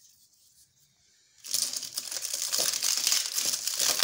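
Clear plastic packaging crinkling and rustling as it is handled and pulled off a new kerosene hurricane lantern. It starts suddenly about a second and a half in, after a near-silent pause.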